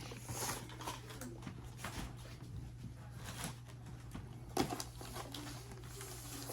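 Faint handling noises of firework cake boxes being moved: light rustles and small clicks, with one sharper knock about four and a half seconds in, over a steady low hum.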